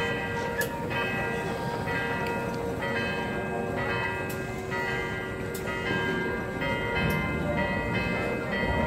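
Church bells ringing, a new stroke about once a second, each ringing on into the next.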